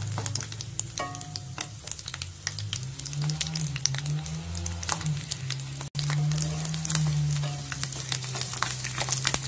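Garlic cloves and dried red chillies sizzling and crackling in hot oil in a metal kadai, stirred with a wooden spatula, over a steady low hum. The sound drops out for an instant about six seconds in.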